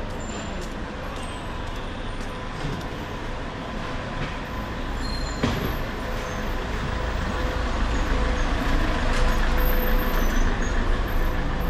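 A motor vehicle's engine rumbling nearby in a busy street, growing louder in the second half. There is a single sharp knock about five seconds in.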